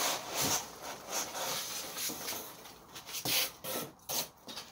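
Cardboard scraping and rubbing against cardboard as an inner box is pulled up out of a shipping carton, with packing peanuts shifting, in a run of uneven scrapes, the loudest about three and a half seconds in.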